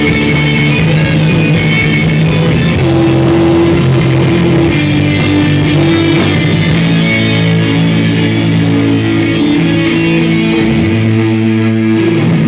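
Live rock band playing an instrumental passage on electric guitars and bass guitar, with long held chords ringing out.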